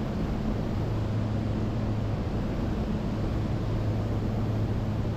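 Steady in-flight drone of a twin-engine Diamond DA62, a constant low engine and propeller hum under a steady hiss of rushing air.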